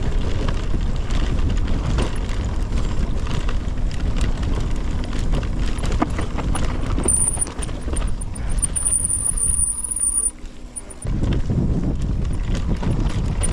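Mountain bike riding fast down a rough, bumpy grass track: wind rumbling on the camera's microphone with the tyres and frame rattling and knocking over the bumps. Briefly quieter about three-quarters of the way through.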